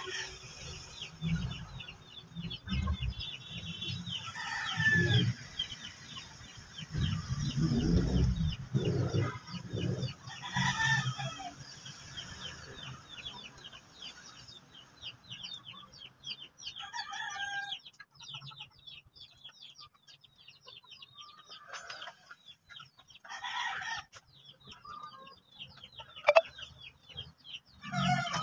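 Chickens clucking, with short rooster crows recurring every few seconds. In the first half there are low knocks and rumbles as the wire-and-wood cage is handled, and a high chittering runs in the background.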